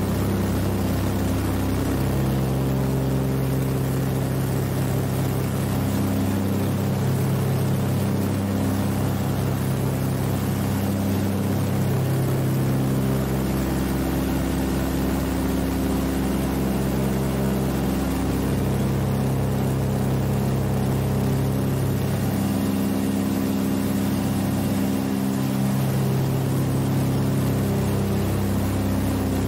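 The two Pratt & Whitney R-1830 Twin Wasp radial engines of a Catalina PBY-5A flying boat droning steadily in flight, heard from inside the flight deck. The drone swells and fades slowly every several seconds.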